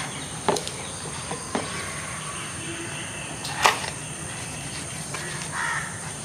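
Sharp clicks and knocks from the accessories and packaging of a DJI Mavic Mini drone kit being handled during unboxing. There are a few separate knocks, the loudest about three and a half seconds in. Behind them is a steady high drone of crickets.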